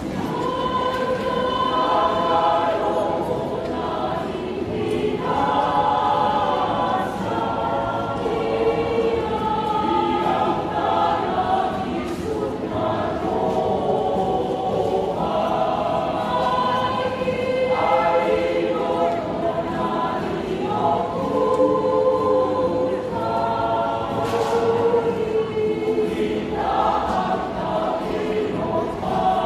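Mixed choir of men and women singing in harmony, in phrases of held notes a few seconds long with brief breaks between them.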